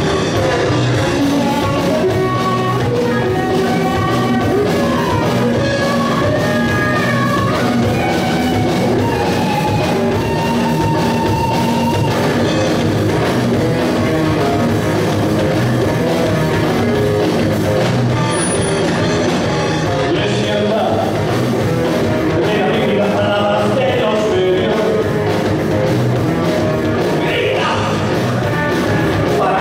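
Hard rock band playing live: electric guitars, bass guitar and drum kit, with a voice singing over them.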